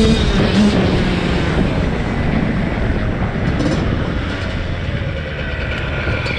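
Steady rumbling roar of a dirt bike ride, wind and engine noise rushing over the microphone, as background music fades out about a second in.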